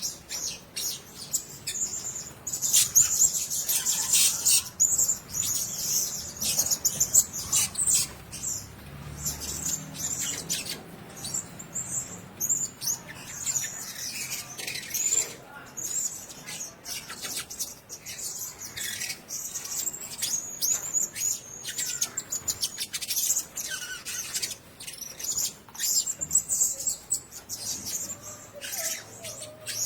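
Blue-crowned hanging parrots giving rapid, high-pitched shrill chirps, a dense run of calls that continues throughout.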